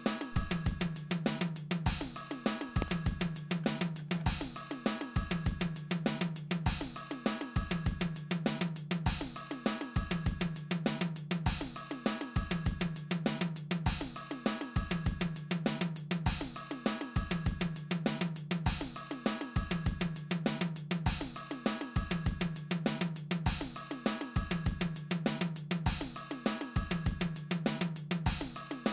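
Background music with a steady drum-kit beat, cymbals and a bass line, in a pattern that repeats about every one and a half seconds.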